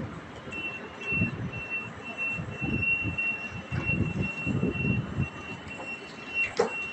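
Door-closing warning of an ÖBB Railjet train: a rapid, high-pitched beeping that starts about half a second in and keeps going, with irregular low thumps beneath it.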